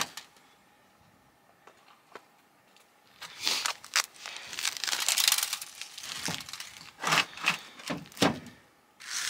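Duct tape and a stack of copy paper being cut, peeled and pulled apart by hand: crinkling and tearing starting about three seconds in, with a few sharp cracks and snaps near the end as the shot-up plate comes open.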